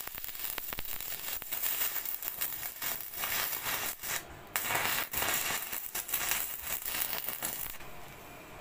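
Stick-welding arc crackling and hissing as an electrode lays a weld on steel rebar joints, with a short break about halfway through before the arc picks up again and stops near the end.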